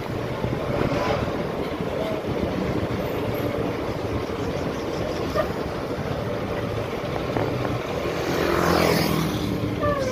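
Moving bus heard from an open side window: steady engine drone mixed with wind and road noise, with a louder whoosh about eight to nine seconds in.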